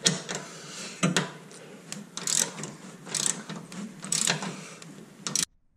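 Socket ratchet wrench ratcheting as it tightens a bolt and nut mounting a stabilizer jack to a trailer frame, a rasping stroke about once a second with fainter clicking between. It cuts off suddenly near the end.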